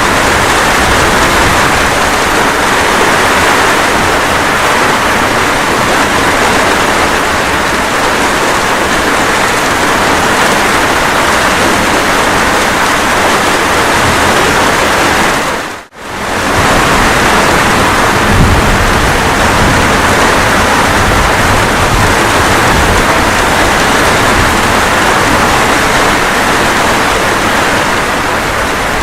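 Steady rain, a dense even hiss. About two-thirds of the way through it fades out and straight back in within a second.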